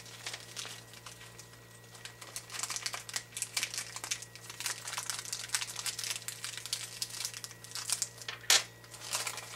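Small clear plastic parts bag crinkling as it is handled and opened, with a sharp click near the end.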